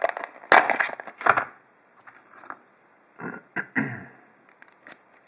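Small metal lock pick and tension wrench clinking and scraping in a brass padlock's keyway while it is being single-pin picked. A loud clatter of metal on metal comes about half a second in, followed by scattered small clicks and short scrapes.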